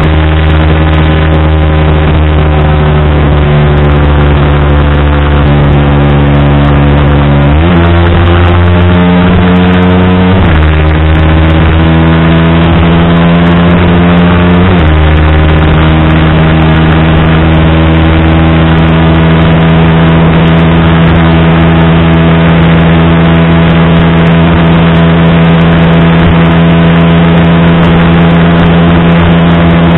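Yamaha R15 V3's 155 cc single-cylinder engine held at high revs under full throttle on a top-speed run, a loud steady drone. Its pitch steps a few times, with a drop about fifteen seconds in at the shift into sixth gear.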